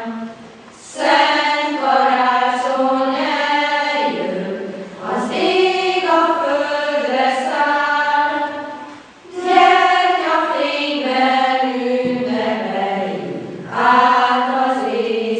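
A choir of girls and women singing a song in several phrases, with short breaks between lines about a second, four, nine and thirteen and a half seconds in.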